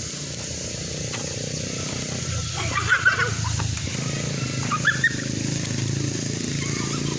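Tuares insects (cicadas) droning steadily in the trees, over a low steady rumble, with a few short high calls about three and five seconds in.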